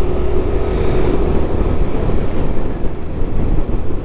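Wind rushing over the microphone of a moving Yamaha Lexi 155 scooter, with road noise underneath; a steady hum fades out about a second in.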